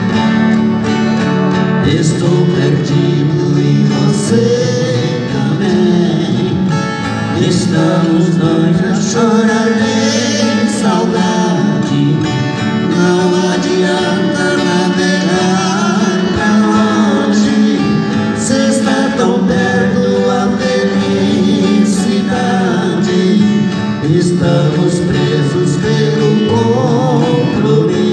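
Two men singing a música caipira duet, accompanied by two strummed acoustic guitars.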